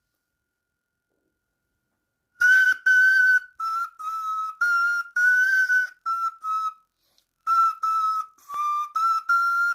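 A short tune blown on an improvised whistle made from an everyday object with a hole, clear flute-like notes with breath noise. It starts about two and a half seconds in, after silence: a few longer held notes, then shorter detached ones, all close together in pitch.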